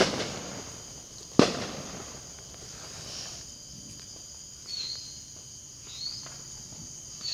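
Two fireworks going off with sharp bangs about a second and a half apart, each ringing out briefly. A steady high-pitched chorus of insects runs underneath.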